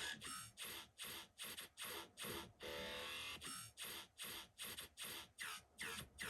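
Electronic dance music track made on an MPC, playing a choppy pulsing rhythm of about three beats a second, broken about halfway by a longer held chord.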